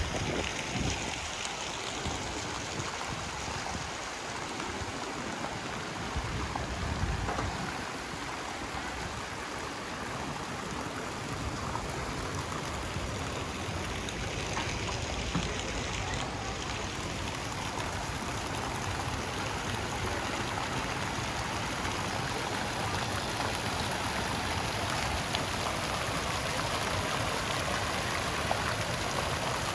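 Steady outdoor street ambience: a continuous, even rushing hiss with a few faint ticks.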